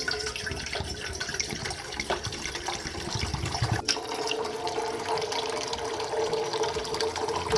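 Drinking water pouring steadily into a pot as it fills.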